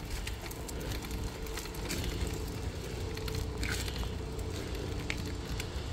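An engine idling steadily, with scattered light clicks and ticks over it.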